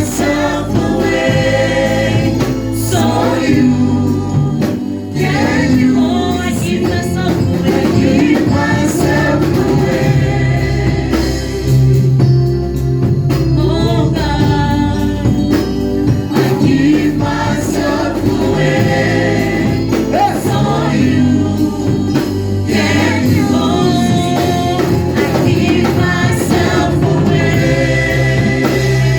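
Gospel worship song: a choir singing with instrumental backing, steady low notes and a regular beat underneath.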